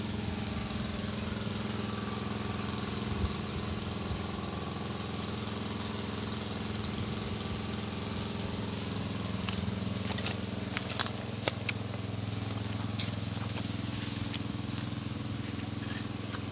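Small engine running steadily at a constant speed, with a few sharp clicks about two-thirds of the way through.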